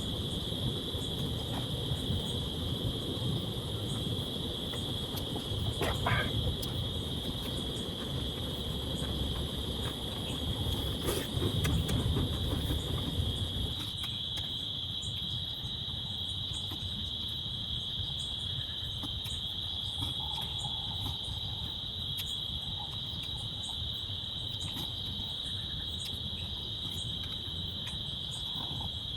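A steady, continuous chorus of crickets, a high, even chirring that holds throughout. Under it is a low rumbling noise that eases about halfway through, with scattered faint ticks.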